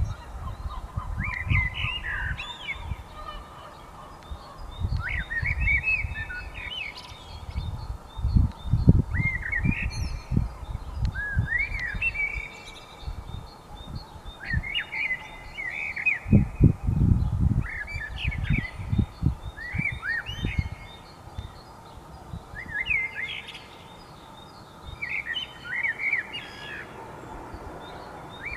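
A thrush sings short, varied, gliding phrases, one every two to three seconds, over fainter high chirping from smaller birds in a dawn chorus. Several bursts of low rumble on the microphone come and go.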